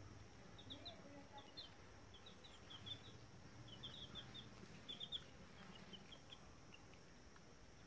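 Faint peeping of baby chicks: short, high chirps in quick runs of several a second, thinning out near the end.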